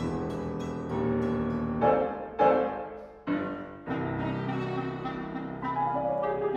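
Live chamber trio of piano, clarinet and violin playing contemporary concert music: held notes and chords broken by four sharp, loud accented attacks in the middle.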